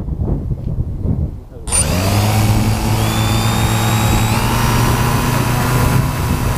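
Wind buffeting the microphone, then about a second and a half in the TBS Discovery quadcopter's brushless motors spin up together and settle into a steady whine with the propellers turning, the craft still on the ground.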